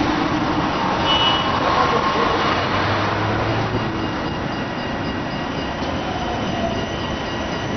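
Street tram running along its track: a steady rumbling noise of wheels and running gear.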